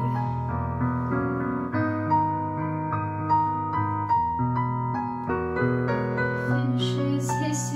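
Piano accompaniment playing a slow, gentle instrumental passage of held chords and single notes, a break between sung lines of the song.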